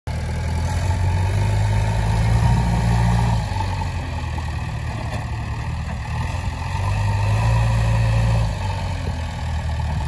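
A JCB 3DX backhoe loader's diesel engine running. It grows louder twice, about a second in and again about seven seconds in, then drops back toward idle.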